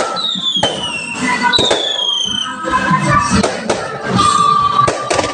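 Fireworks display: sharp bangs, about four, with two falling whistles in the first half.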